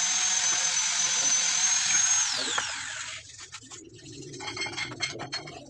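Small high-speed power tool running with a steady high whine, switched off a little over two seconds in and spinning down with a quickly falling pitch. Light clicks and knocks follow.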